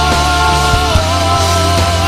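Hard rock entrance theme music: a steady heavy low part with a long held, slightly wavering melody note over it.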